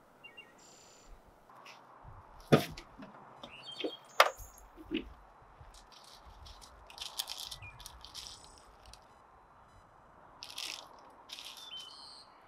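Handling noises: two sharp clicks a couple of seconds in, then scattered light clicks, rattles and rustles as gear is moved about in the back of a Jeep, with a few faint high chirps.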